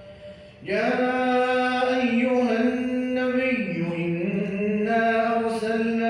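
A man reciting the Quran in melodic tajweed style. After a brief breath he holds one long drawn-out vowel, which steps down in pitch about halfway through and climbs back up.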